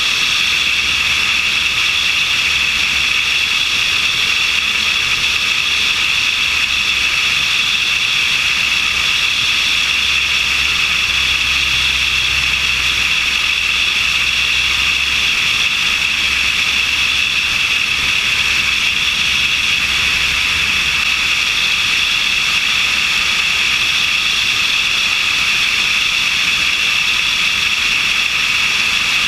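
Steady in-flight noise of a light aircraft heard from a camera mounted on its wing: a loud, even rush of airflow over the camera with the aircraft's drone underneath. Low rumbles of wind buffeting come and go over the first twenty seconds or so.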